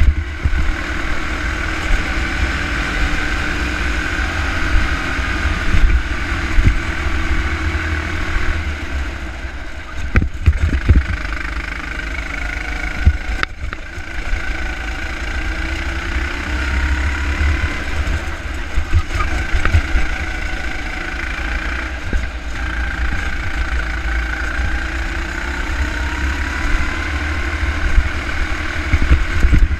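Go-kart engine running under the onboard camera, its pitch rising and falling with the throttle through corners and straights, over a heavy low rumble. A few sharp knocks come near the middle.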